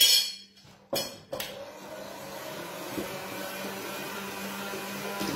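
Electric hand mixer running steadily in a bowl of cake batter, beating in the flour; it starts about a second and a half in, after a clink and two knocks against the bowl.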